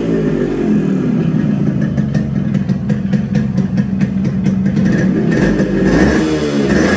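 Yamaha RX100's 98 cc two-stroke single-cylinder engine running through a silencer whose baffle tube has been cut down and extended with welded pipe for a louder exhaust note. A rapid crackle of pops comes from the exhaust in the middle.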